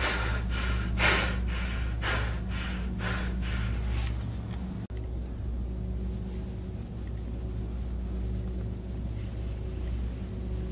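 A man breathing hard and fast, about two hissing breaths a second, fading away over the first four seconds. After that there is only a steady low hum.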